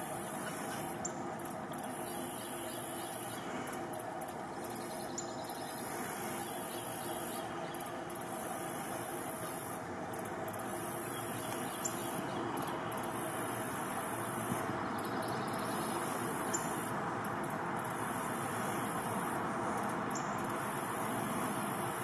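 Steady outdoor nature ambience: an even rushing noise with a constant high hiss, and faint brief bird chirps every few seconds.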